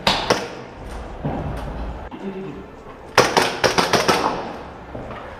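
Airsoft gunfire indoors: two sharp cracks at the start, then a quick string of about six shots a little over three seconds in.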